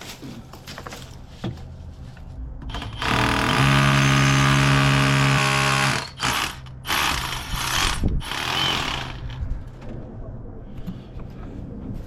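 Handheld power tool motor running steadily at one speed for about two and a half seconds, then run in a few short bursts.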